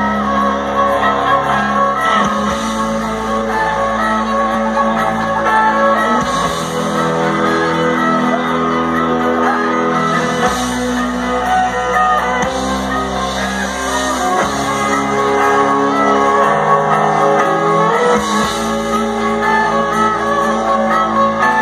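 Live band playing music, with sustained chords and a bass line that change every few seconds.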